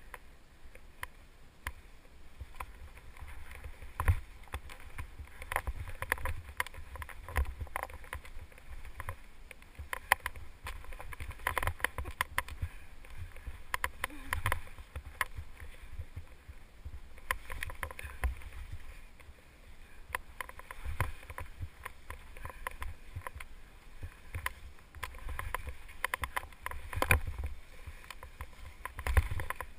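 Skis turning through deep powder snow: a steady low rush of wind on the microphone, with irregular swishes and thumps as the skis and poles hit and spray the snow.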